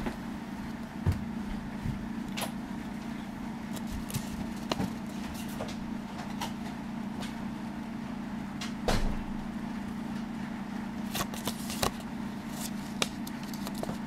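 A small paper booklet being handled and its pages turned: scattered short clicks and rustles of paper over a steady low hum.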